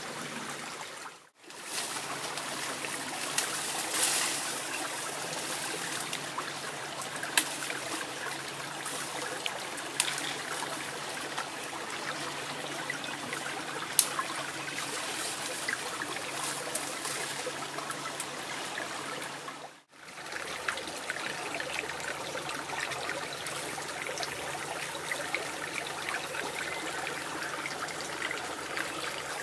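Shallow stream running over rocks, a steady rush and trickle of water, with scattered sharp clicks. The sound breaks off briefly twice, about a second in and again about twenty seconds in.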